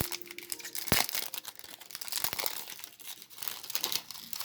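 Foil trading-card booster pack crinkling and tearing as it is opened by hand, with a sharp snap about a second in.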